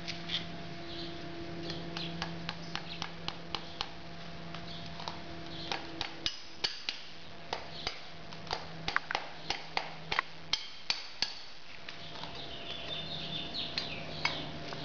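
Farrier's driving hammer tapping horseshoe nails into a horse's hoof: quick light metal taps in runs of a few a second, with short pauses between.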